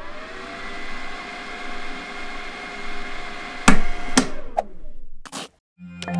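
Logo-animation sound effects: a swelling whoosh with faint steady tones, then two sharp hits about half a second apart, a third hit about a second later, and a chime starting at the very end.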